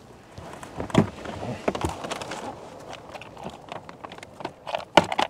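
Rummaging through a tackle box for a lead sinker: scattered clicks and knocks, loudest about a second in and again near the end.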